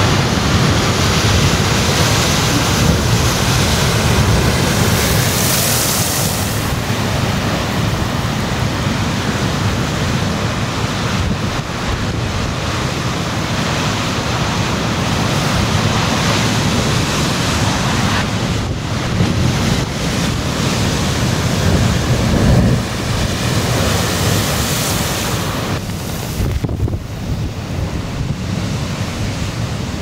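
Storm waves crashing and breaking on rocks in a gale, a continuous loud roar of surf and spray, with strong wind buffeting the microphone.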